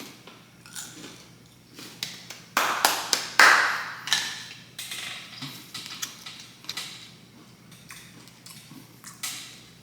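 Close-miked eating sounds: small clicks and taps of a utensil and food container, with a louder, noisy stretch of a few seconds a little under three seconds in.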